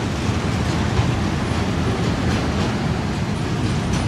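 Freight train of enclosed car-carrier wagons rolling past at close range: a steady rolling noise of steel wheels on the rails, with faint clicks at intervals as the wheels cross rail joints.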